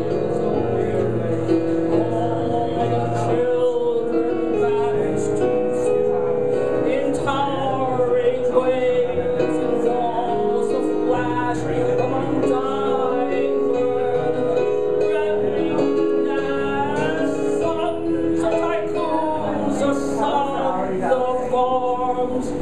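A woman singing a slow cabaret song into a microphone, with held notes over piano accompaniment.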